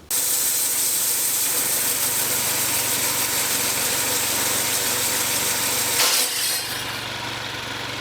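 Homemade bandsaw sawmill running and its band blade cutting through a maple log, a loud steady run with a high hiss. About six seconds in a sudden crack as the blade snaps, after which the mill's engine keeps running, quieter.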